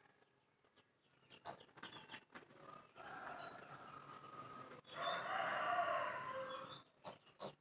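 A rooster crowing, a long call starting about three seconds in and growing louder in its second half, with a few short high bird chirps over it.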